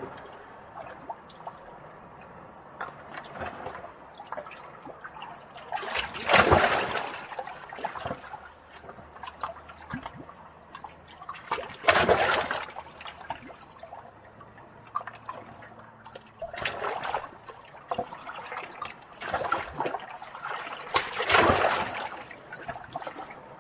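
Small, calm sea waves lapping against rocks close by: a steady trickle and drip of water between the waves, with four louder splashing wash-ups a few seconds apart.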